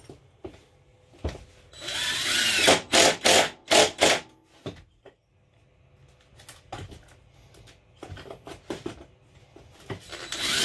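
Cordless impact driver driving screws into a wooden wall panel. A run of about two seconds is followed by several short bursts as the screw seats, then a quieter spell with a few weaker bursts, and another run begins near the end.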